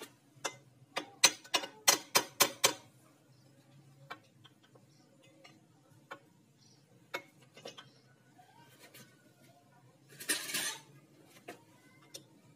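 Metal engine parts clicking and clinking as they are handled in the opened crankcase of a Yamaha Vega ZR engine: a quick run of about eight sharp clicks in the first few seconds, then a few scattered clicks and a short rustle near the end.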